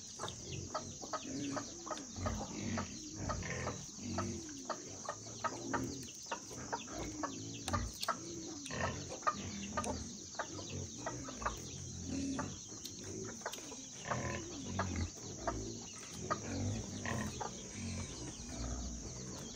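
Chickens clucking again and again, with many small clicks and taps and a steady high-pitched hum behind them.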